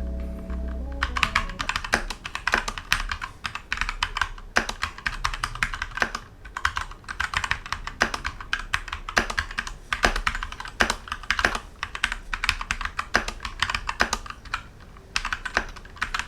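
Keychron K2 tenkeyless mechanical keyboard with Gateron Brown switches being typed on quickly, a dense run of key clacks with a couple of brief pauses. A bit of music fades out as the typing starts.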